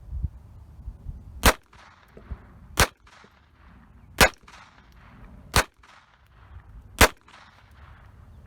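Five shots from a Taurus TX22 .22 LR pistol firing Remington Golden Bullet 36-grain hollow points, about a second and a half apart, each followed by a short echo.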